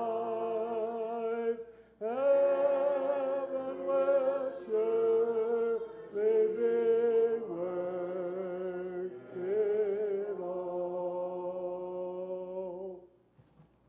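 Congregation singing a hymn a cappella, many voices together holding long notes in phrases; the final note fades out near the end.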